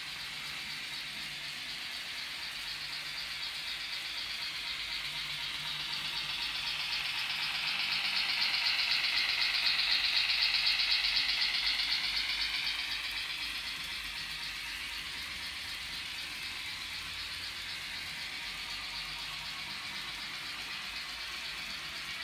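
N-gauge model train rattling along the track. It grows louder as it approaches, is loudest about ten seconds in, and fades as it moves away.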